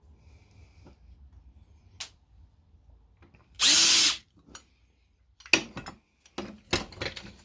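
Power drill runs in one short burst of about half a second, its pitch falling as it slows, drilling out a steel retaining pin from a Fiat 500 clutch pedal arm and shaft. A run of sharp clicks and knocks follows near the end.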